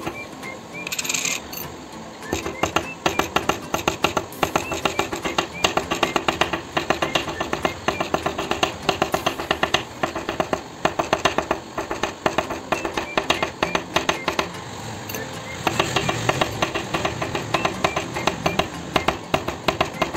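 Small hammer tapping rapidly on a gold bangle set on a steel block, about four or five light metallic strikes a second, hammering a faceted pattern into the gold. Background music plays underneath.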